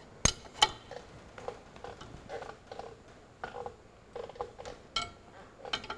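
Spanner working the nut on a threaded-rod bush puller, drawing a king pin bush into its bore: two sharp metal clicks in the first second, then short creaking clicks about twice a second as the nut is turned in small strokes.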